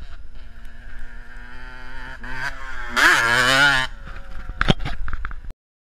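125cc two-stroke enduro motorcycle coming up a dirt track toward the microphone. The engine revs higher about two seconds in and is loudest, its pitch wavering, for about a second past the three-second mark as it passes close. A few sharp knocks follow, then the sound cuts off abruptly near the end.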